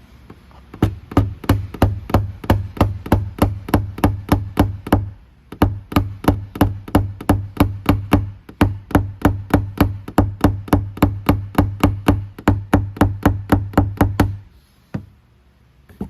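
Small hammer tapping a paintless-dent-repair knockdown punch against a car door panel, a steady run of sharp knocks at about three to four a second with one short pause, then a couple of single taps near the end: tapping down the high spots around a dent.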